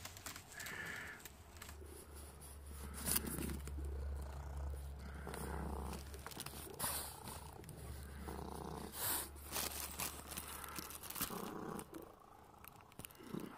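A grey Scottish Fold cat purring steadily right at the microphone, the purr dying away about twelve seconds in. A few soft clicks and rustles come over it.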